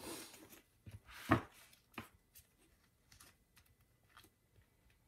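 Washi tape strip being handled and laid onto planner paper: a papery rustle at the start, a sharp knock about a second in, a lighter tap soon after, then faint rustles and ticks.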